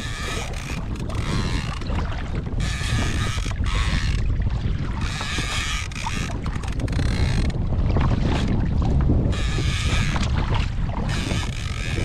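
Shimano Talica 16 lever-drag fishing reel whirring in repeated bursts of about a second while a big fish is fought on the line. Wind buffets the microphone with a steady low rumble.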